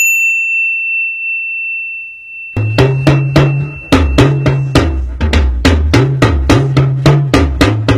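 Logo jingle: a single high steady tone held for about two and a half seconds, then drums and a bass line come in with a quick, even beat.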